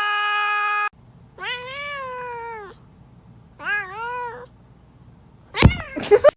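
A domestic cat meowing twice, one long meow and then a shorter one. A steady held tone cuts off about a second in, and near the end comes a loud thump followed by short high-pitched sounds.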